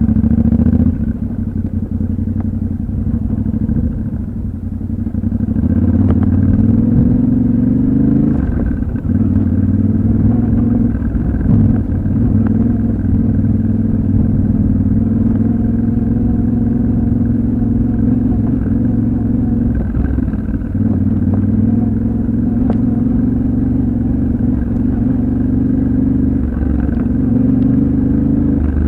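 Yamaha Ténéré 700's 689 cc parallel-twin engine running under a steady, moderate throttle while riding offroad. It eases off for a few seconds near the start, then picks up again and holds even revs. Occasional knocks and clatter come from the rough ground.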